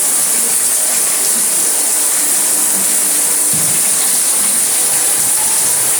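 Steady, even hiss of heavy rain.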